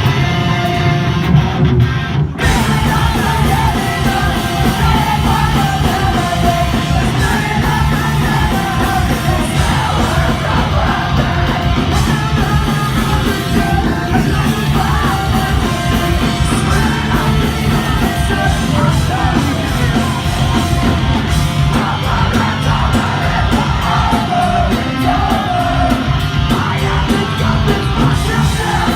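Live rock band playing loud, with drums, guitars and a singer yelling the vocals. The sound drops out briefly about two seconds in, then the full band carries on.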